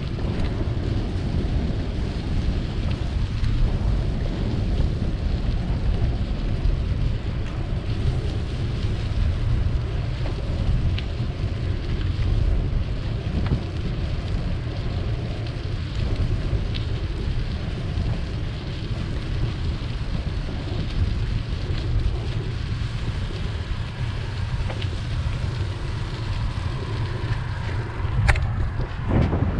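Steady wind buffeting the microphone of a camera on a moving bicycle, a dense rumble heaviest in the low end, with one sharp click near the end.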